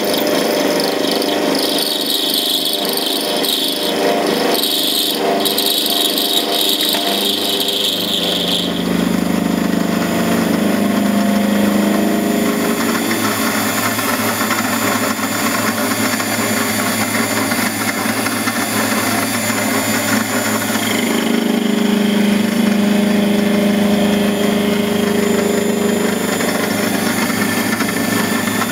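Benchtop metal lathe running an end mill clamped in its chuck, milling a metal workpiece held in a milling attachment: steady motor and cutting noise. A high-pitched squeal from the cut holds over the first several seconds and stops about nine seconds in, leaving a lower steady machine tone.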